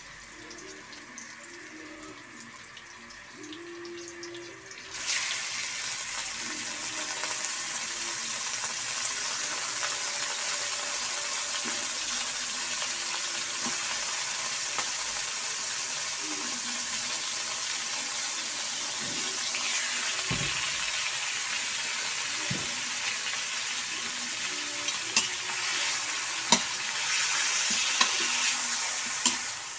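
Chicken pieces going into a pan of sautéing garlic and onion: the sizzle jumps suddenly louder about five seconds in and then fries steadily. A few knocks of a spatula stirring against the pan come later on.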